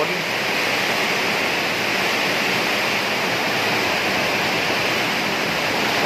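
Heavy rain pouring down in a rainstorm: a steady, even rushing hiss.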